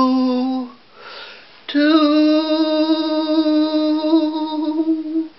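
A man singing unaccompanied, holding a long note that ends just under a second in. After a brief breath he holds a second long, steady note for about three and a half seconds.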